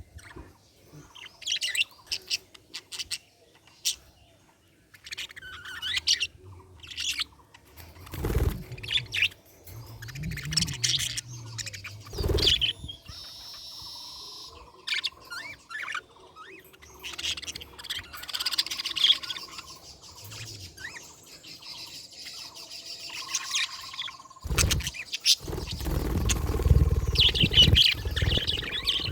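Budgerigars chirping and warbling in short, high-pitched bursts, with a couple of dull thumps and a loud stretch of low rumbling noise near the end.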